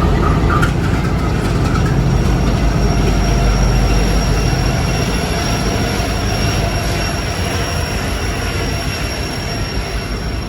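Local freight train moving during switching: a continuous heavy rumble of locomotive and cars on the rails with a thin, steady high-pitched wheel squeal. The rumble eases slightly in the second half.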